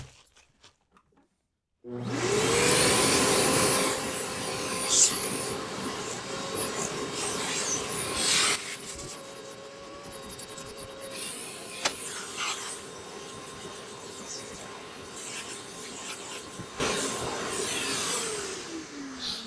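Festool CT 15 HEPA dust extractor switched on about two seconds in, its motor spinning up to a steady whine as it sucks up sanding dust, the suction noise changing as the nozzle moves. Near the end it is switched off and winds down with a falling pitch.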